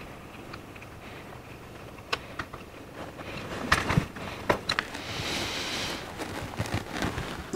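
Small metal clicks and taps as a screwdriver works on a Rochester four-jet carburetor's throttle plate and linkage, with a short scraping sound about five seconds in.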